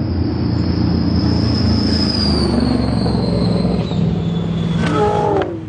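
Speedboat engine running hard at speed, with a steady low drone and a thin high whine that slowly falls in pitch over a few seconds.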